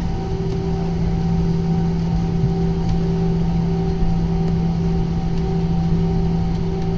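Airbus A320 cabin noise: the steady drone of the engines and airflow, with a constant low hum under a wash of noise.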